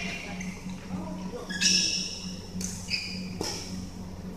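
Badminton rally: sharp racket hits on the shuttlecock, about three in a row, mixed with short high squeaks of sneakers on the court floor, ringing in a large hall.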